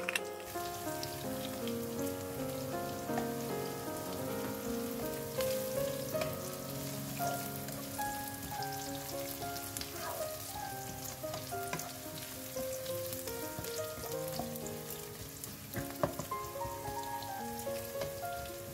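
Fish balls, sliced shallots and chilies sizzling in oil as they are stir-fried in a nonstick wok, with a wooden spatula scraping and knocking against the pan now and then, over soft background music.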